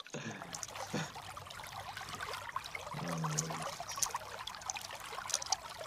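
Water trickling, with small clicks and rattles of wet gravel and stones in a wire sieve being picked through.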